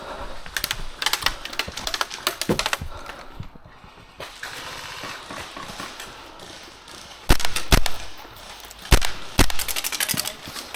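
Airsoft guns firing in rapid bursts of clicking shots, with several loud sharp thumps in the second half.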